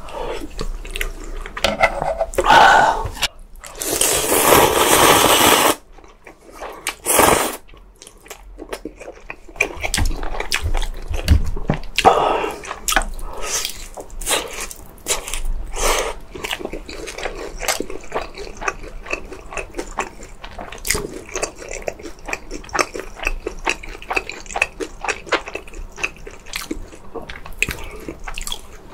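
Close-miked eating sounds: a loud slurp lasting about two seconds a few seconds in, then steady wet chewing full of small clicks and crunches.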